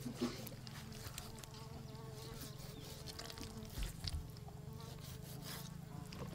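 A steady insect buzz, with a few faint knocks as a knife scores a raw chicken and the bird is turned on a wooden chopping block.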